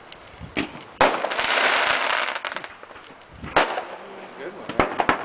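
Consumer fireworks going off: a sharp bang about a second in followed by a couple of seconds of dense crackle, then more sharp bangs near the end.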